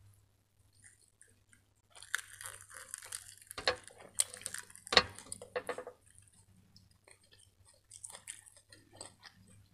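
Crisp iceberg lettuce crackling and crinkling as it is pressed and folded through thick sauce on a plate, with wet squelches. The busiest stretch lasts a few seconds and holds two sharp snaps, and fainter crackles follow near the end.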